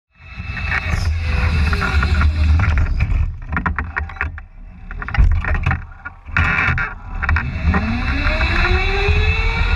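Go-kart driving on an indoor track, heard from an onboard camera, with a heavy low rumble. Its sound dips and clicks briefly twice midway, then its pitch rises steadily over the last two seconds as it accelerates.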